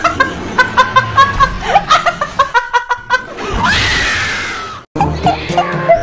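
A woman laughing hard in rapid, rhythmic bursts, then letting out one long scream that cuts off suddenly. After a brief break, music starts near the end.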